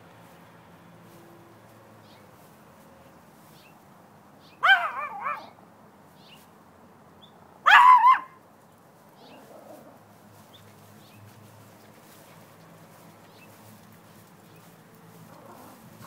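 Chihuahua barking twice, about three seconds apart: a quick high-pitched yap or two, then one louder bark.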